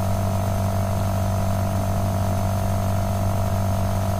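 Steady electrical mains hum in the recording: a constant low drone with a few higher steady tones above it, unchanging throughout.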